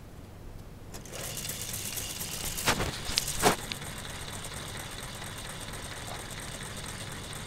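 K'nex model V8 engine running on its battery-powered motor: the plastic crankshaft, rods and pistons turning with a steady fine mechanical rattle over a low motor hum. A few louder plastic clicks come about three seconds in.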